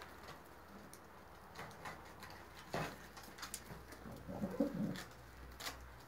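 Domestic pigeons cooing, one low wavering coo about four to five seconds in, with a few short sharp clicks before and after it.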